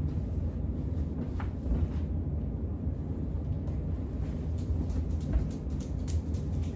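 Bernette B79 sewing machine running steadily as it stitches fabric strips together, a continuous low mechanical hum, with a few light clicks in the second half.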